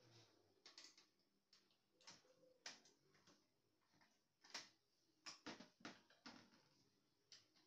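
Faint, irregular clicks and taps of small printer parts and tools being handled during disassembly of an HP LaserJet laser printer, the sharpest coming in a cluster from about the middle onward.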